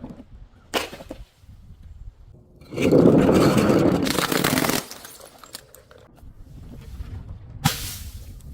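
Glass being smashed: a sharp crack about a second in, a loud crunching shatter lasting about two seconds from about three seconds in, and another sharp crack near the end.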